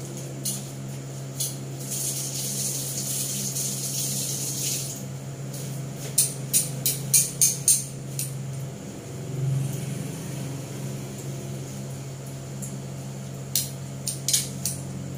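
Several sharp metallic clicks of kitchen tongs in two runs, a few seconds apart, over a steady low hum. About two seconds in comes a hiss lasting about three seconds.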